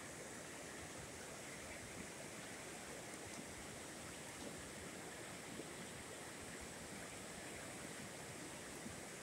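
River running high with storm runoff, a steady continuous rush of fast water over rapids.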